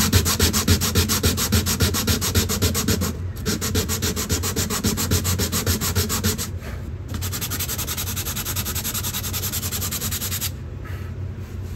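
A wooden plug set into a guitar's spruce top being rubbed down flush by hand in fast, even back-and-forth strokes. The strokes come in three runs, broken by short pauses about three and six and a half seconds in, and stop about a second before the end.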